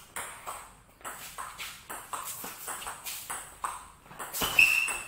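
Table tennis rally: the ball clicks sharply off the bats and the table, about two to three hits a second at an uneven pace. About four and a half seconds in comes a louder, short high-pitched sound.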